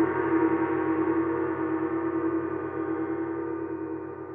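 A gong struck once rings on with many overtones and slowly fades, its lower tones wavering quickly. It is a transition sound effect under a title card.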